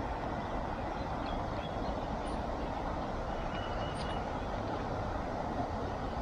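Steady outdoor rushing noise with no rhythm or pitch, strongest in the low range, with a faint short high chirp about three and a half seconds in.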